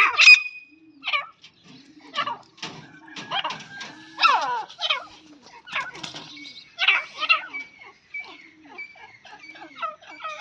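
Grey francolins calling: a run of short, harsh chattering calls every second or so, with louder bursts about a second in, around four seconds in and around seven seconds in.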